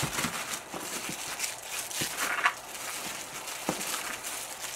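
Tissue paper rustling and crinkling as items are lifted out of a cardboard box, with a few short taps.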